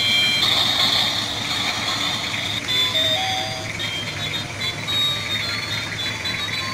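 Battery-powered toy steam locomotive running on plastic track: a small motor whirring and the wheels rattling, with thin high electronic notes changing pitch in steps.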